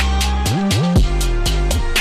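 Background music: a steady drum beat with closely spaced hits over a deep bass line, which slides up in pitch twice about halfway through.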